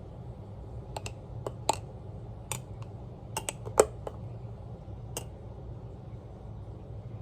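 A spoon clicking against the side of a mug about ten times, in irregular taps, while it presses a tea bag against the wall of the cup to steep milk tea. The loudest clink comes about four seconds in, over a low steady hum.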